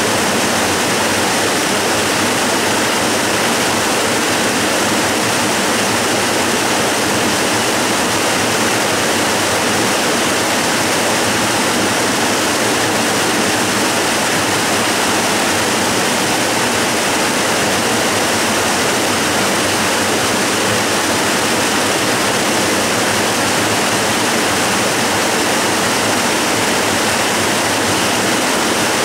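Waterfall cascading: a steady, unchanging rush of falling water.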